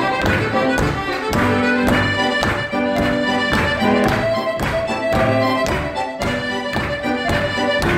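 Button accordion playing a tune over chords on an electronic keyboard, with a steady beat of about three strokes a second.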